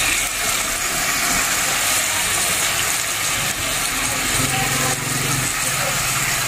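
Lechon (roast pork) chunks sizzling steadily in a hot pot with soy sauce, a continuous hissing crackle.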